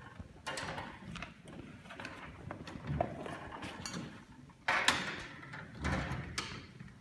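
Irregular rustling, shuffling and knocking handling noises, a few louder knocks among them and the loudest about five seconds in, with no music being played.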